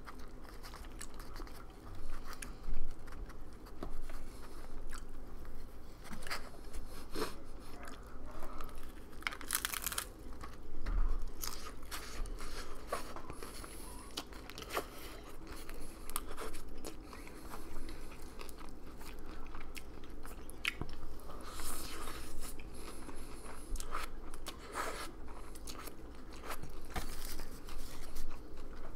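Close-miked biting, crunching and chewing of a crispy taco shell, in irregular crackles throughout, the sharpest a few seconds in.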